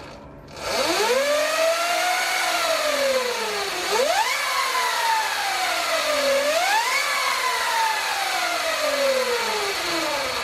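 Sur Ron Light Bee MX electric motor and freshly installed 420 chain primary drive running with the rear wheel spinning off the ground. A whine climbs and falls with the throttle three times, the last two rises sharp, over a steady hiss from the drive. It is really loud even with the new O-ring chain.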